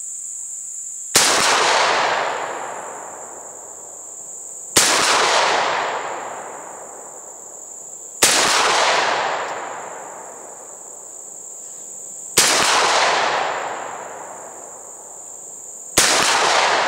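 Derya MK-10 semi-automatic 12-gauge shotgun firing Winchester Ranger 1-ounce slugs: five shots spaced three to four seconds apart, each followed by an echo dying away over about two seconds. Crickets chirp steadily in a high-pitched drone underneath.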